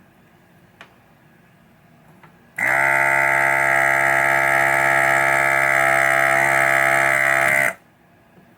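Electric desoldering gun's vacuum pump buzzing steadily for about five seconds, starting and stopping abruptly, as solder is sucked off a connector pin on the pinball power supply board so the pin can be pulled out.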